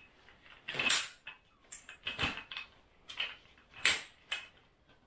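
Cliq portable camp chair being opened out: its folding frame snaps and clicks into place in a series of short, sharp clicks, the loudest about one, two and four seconds in, with creaks as the seat fabric is pulled taut.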